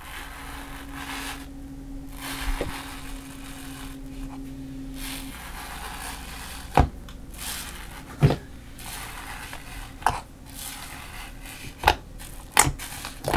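Fingers pressing into and stretching bubbly slime, a fluffy slime left to stand for days so that air bubbles rise through it: a continuous fine crackle of bubbles bursting, with several louder squishy pops in the second half.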